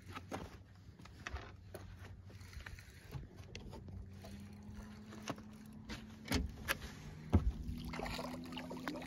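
Light clicks and knocks from tackle being handled in a boat, with a low steady hum coming in about halfway through. Near the end, water splashes as a hooked fish thrashes at the surface beside the landing net.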